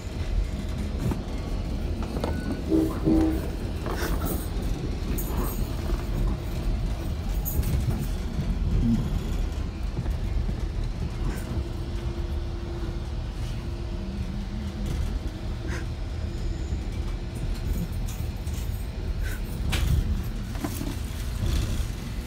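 Commuter train running, heard from inside a passenger car: a steady low rumble of wheels on rail, with scattered clicks and rattles over the track. A faint steady tone sounds for a few seconds around the middle.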